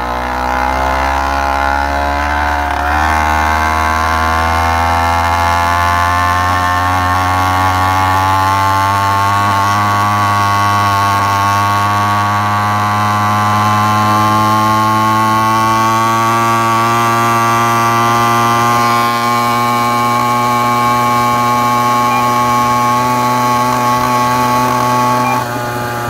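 Motorized bicycle's small two-stroke engine running under way, its pitch climbing steadily as the bike gathers speed over the first dozen or so seconds, then holding. It drops off just before the end as the throttle eases.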